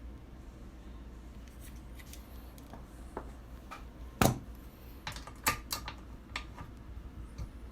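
Brass rifle cases and a Lyman case trimmer being handled: scattered light clicks and metallic knocks, the loudest a sharp knock about four seconds in.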